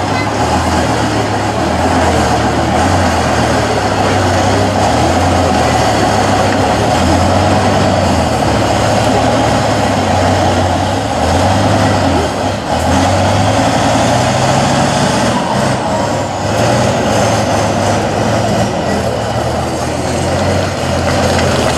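Tatra 815 6x6 trial truck's diesel engine under heavy load, pulling the truck over a steep dirt bank. The engine note rises and falls again and again as the throttle is worked.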